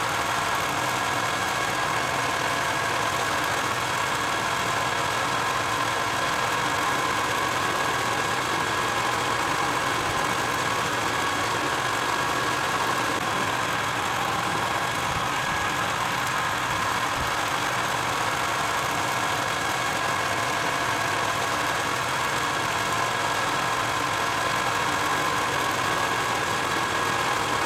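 Metal lathe running steadily, a cutting tool turning down the end of a steel socket extension: an even mechanical hum with several steady high tones.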